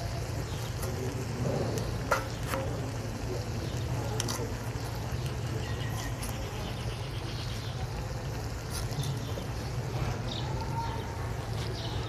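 Hilsa curry simmering softly in a clay pot on a clay stove, over a steady low background noise, with a few sharp clicks of a knife slitting green chilies over a steel bowl, the loudest about two seconds in.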